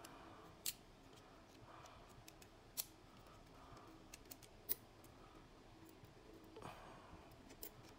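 Near-silent room tone broken by a few faint, sharp clicks of small metal spinning-reel parts and hand tools being handled, the loudest a little past halfway.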